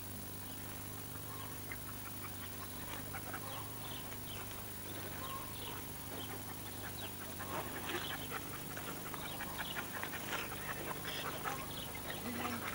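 A young herding dog giving short, faint yelps, sparse at first and coming more often in the second half, over a steady low hum.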